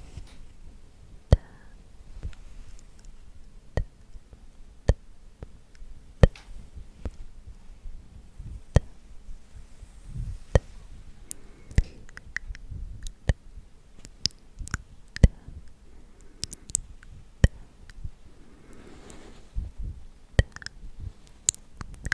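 Close-microphone ASMR trigger sounds: sharp, crisp clicks at irregular intervals, with a few soft rustling or brushing patches between them.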